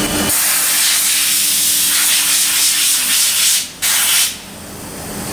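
Compressed-air blow gun hissing loudly as it is aimed at a machined aluminum part in a CNC machine's chuck: one long blast of about three seconds, then a brief second blast.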